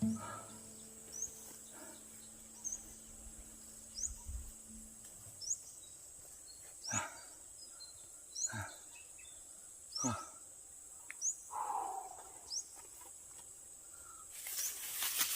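Faint rural outdoor ambience: a short, high, rising chirp repeats about once a second over a steady high hiss, with a few soft knocks in the middle.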